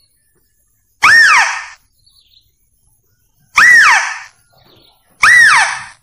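Mouse-deer (kancil) lure call played for hunting: a loud, short squeal whose pitch shoots up and then falls away, repeated three times, about a second in, just past the middle and near the end.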